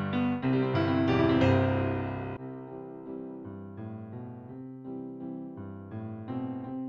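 Piano music: a fuller, louder run of notes that drops about two and a half seconds in to a quieter, sparser melody.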